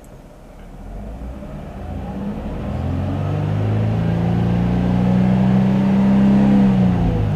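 Nissan Fairlady Z (Z33) V6 engine free-revved while stationary: the revs climb over the first few seconds, hold high and steady, then fall back near the end.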